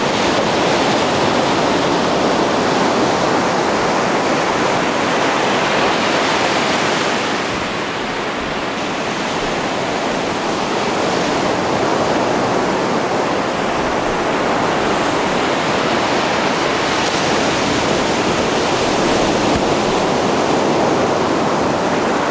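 Ocean surf breaking and washing up a sand beach: a steady rush of water that eases slightly about eight seconds in, then builds again.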